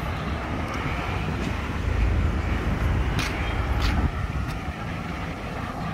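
Light street traffic: cars driving past, their engines and tyres a steady low rumble that swells for a couple of seconds around the middle.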